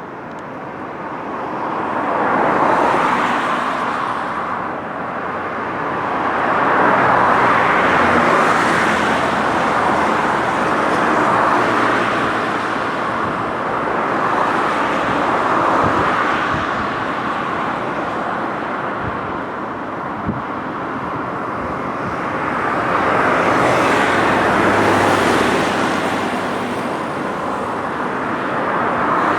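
Road traffic on a bridge: cars passing one after another, the tyre and engine noise swelling and fading every few seconds. A brief tick about twenty seconds in.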